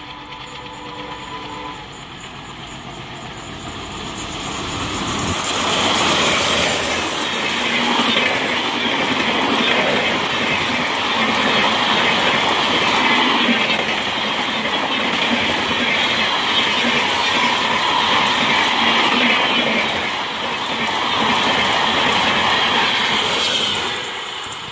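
WDM3D ALCO-type diesel-electric locomotive approaching and passing at speed, followed by its LHB coaches rushing by with the wheels clattering along the rails. The sound builds over the first five seconds, stays loud and steady, then drops near the end as the last coach goes by.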